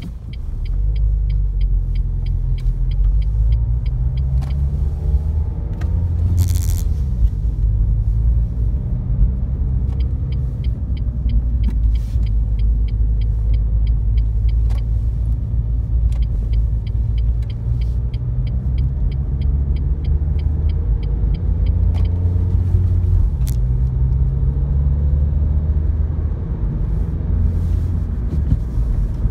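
A car's engine and tyres rumbling from inside the cabin as it drives and accelerates out of a roundabout onto a motorway slip road, the engine note rising several times. For three stretches the indicator ticks evenly at about three clicks a second. There is a short burst of hiss about six seconds in.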